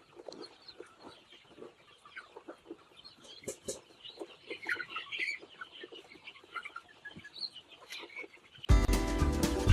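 Flock of chickens in a poultry house, many short clucks and chirps overlapping, with scattered light clicks. Loud background music with a steady beat cuts in abruptly near the end.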